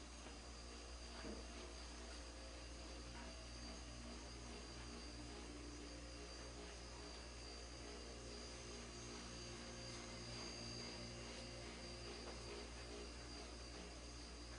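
Faint, steady low electrical hum, like mains hum, with no other sound standing out.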